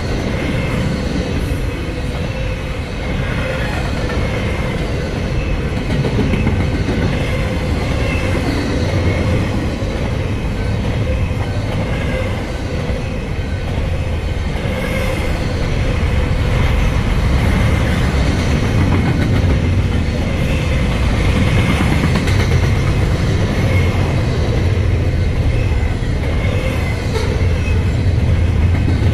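Double-stack intermodal container train rolling past, its freight cars' wheels rumbling and clattering on the rails. The sound is steady and grows a little louder about halfway through.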